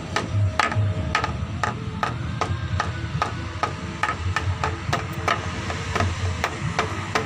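Bamboo struck repeatedly by hand, a steady run of sharp knocks about two to three a second, each with a low hollow thud.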